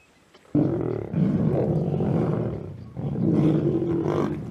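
Lions growling over a kill: a sudden loud, rough outburst about half a second in, easing briefly near three seconds, then rising again.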